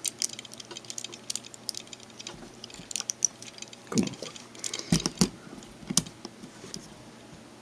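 Plastic action figure being handled with its leg joints moved: a run of light clicks and taps, busiest between about three and five seconds in, then dying away near the end.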